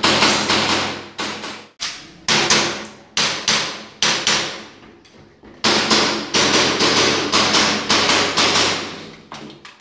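Airsoft pistol firing a string of sharp, loud shots, about two a second, each with a short echoing tail, with a break of about a second midway before the string resumes.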